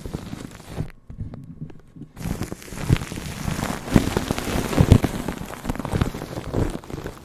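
Close-miked ASMR trigger sounds: dense, rapid crackling and tapping, with a short near-silent gap about a second in.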